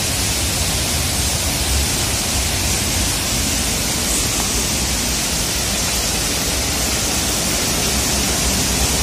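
Large waterfall pouring with a heavy flow of water: a steady, unbroken rush of falling water.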